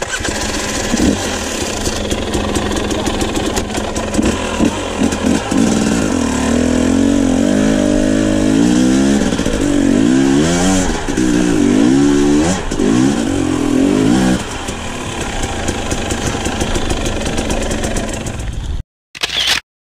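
Dirt bike engine revving up and down as the bike climbs a rocky slope, with repeated knocks and rattles over the rocks. The revving eases to a steadier note about fourteen seconds in, and the sound cuts off abruptly near the end.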